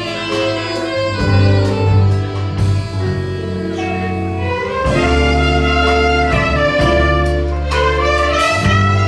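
Orchestra playing a melody of held notes over a sustained bass line, with brass or reed instruments carrying the tune.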